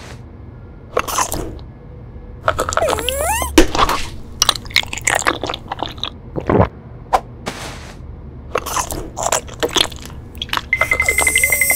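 Cartoon eating sound effects: crunchy bites and chewing of fruit-shaped jelly candies, in irregular crunches, with a couple of short squeaky gliding sounds. Near the end a fast buzzing pulse with a steady high tone starts.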